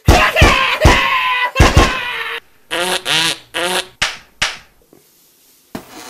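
Cartoonish fight sound effects: a rapid run of sharp smacks and thuds over a pitched mouth-made noise for about two seconds, then four or five short yelps.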